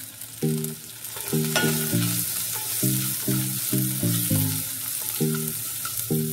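Shallots, garlic, ginger, green chillies and curry leaves sizzling in hot coconut oil, stirred and scraped around a pot with a wooden spatula. Under it runs a low background tune of short, regularly repeated notes.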